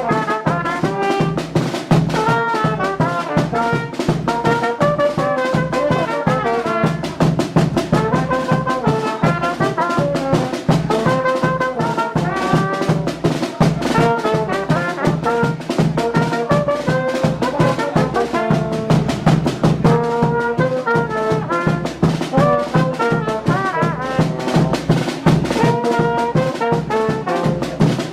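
A Carnival bloco's brass band playing live: trumpets and trombones carry the tune over a steady, fast drum beat.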